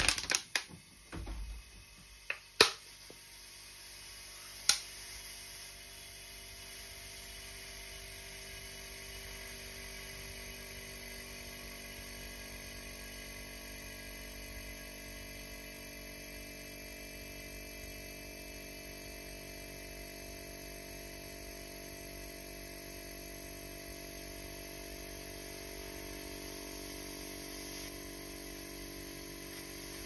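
Refrigerator compressor running with a steady hum, pumping air into a 1.5 L plastic bottle, with a few sharp clicks in the first few seconds. The hum grows a little stronger near the end.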